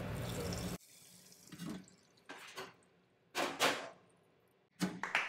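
Hot oil bubbling and sizzling in a Henny Penny Evolution Elite open fryer as the wire basket is lifted out at the end of the frying program; the sizzle cuts off abruptly under a second in. After it come a few short knocks and rustles of handling, the loudest two close together about three and a half seconds in.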